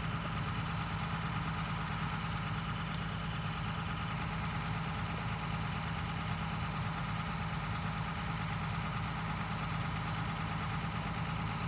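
Tractor engine idling steadily while hitched to a grain cart, waiting to load.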